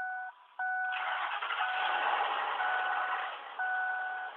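Ford Expedition's dashboard warning chime beeping on and off in a steady pattern; about a second in, the 5.4-litre three-valve Triton V8 starts and keeps running under the chime. The owner hears timing chain slap in it, which he puts down to worn timing chain guides and tensioners.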